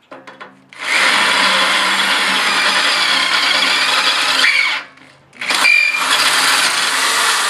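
Power drill with a 3/8 inch bit boring through the steel lip of a tractor loader bucket, enlarging a smaller pilot hole in steps. It runs in two bursts of about four and three seconds with a short pause between, with a brief squeal from the bit as it cuts.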